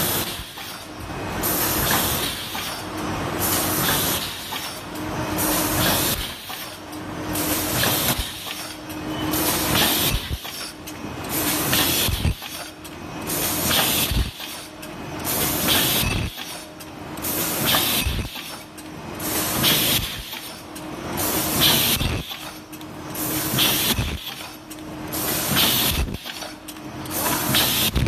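Enlarged B600 paper bowl forming machine running steadily while making 220 mm paper buckets. It works in a regular cycle of about one stroke every two seconds, each with sharp knocks and a hiss of air.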